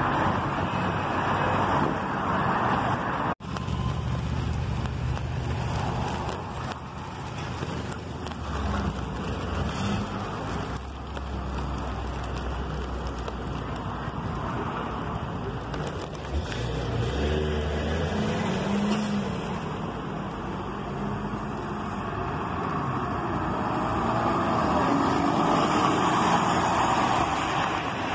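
Street traffic: a city transit bus's engine rumbling deep and close by for several seconds, among passing cars.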